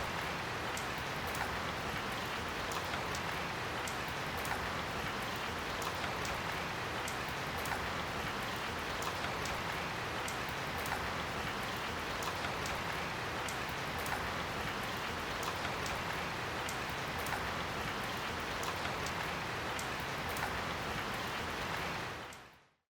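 Light rain drizzling steadily, an even hiss flecked with small drop ticks, fading out quickly near the end.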